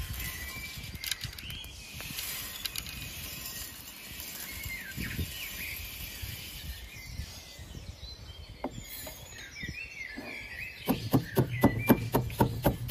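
Roasted wheat grains sliding and pattering from a metal pan into a clay bowl, with birds chirping. About two seconds before the end, a pestle starts pounding the grains in a metal mortar: sharp ringing strikes, about three a second, the loudest sound.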